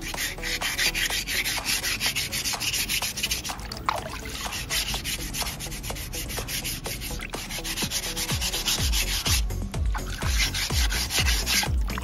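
Wet sandpaper rubbed in quick back-and-forth strokes over a white cement sculpture, with two short pauses.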